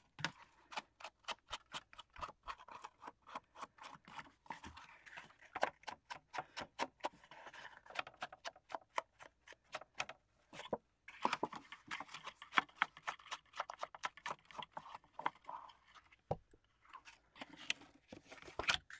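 A wooden-handled ink dauber dabbing ink onto the edges of a kraft paper box, quick faint taps about three or four a second, with a stretch of rubbing and paper rustling in the middle.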